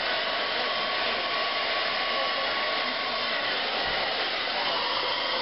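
Handheld hair dryer running steadily, blowing hot air into hair held up on a round brush.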